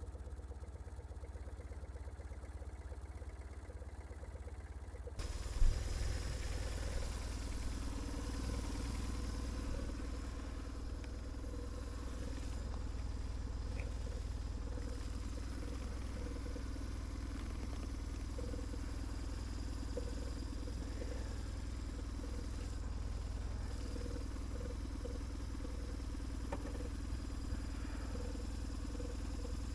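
BMW R1150GS boxer-twin motorcycle engine running steadily at idle. A single sharp knock sounds about five and a half seconds in.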